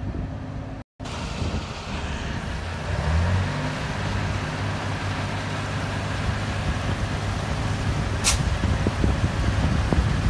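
Fire truck engine running steadily, its pitch rising briefly about three seconds in. A short sharp hiss comes about eight seconds in.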